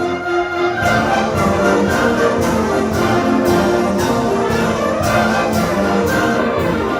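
Orchestral background music with brass and strings over a steady beat of about two hits a second.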